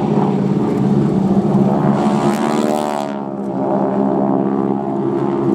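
Radial engines of a formation of Boeing Stearman biplanes flying a low pass, a steady drone whose pitch drops about three seconds in as the aircraft go by.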